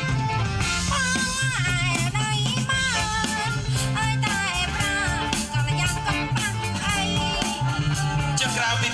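A song playing: a singer's wavering, ornamented melody over a band with a repeating bass line and a steady drum beat.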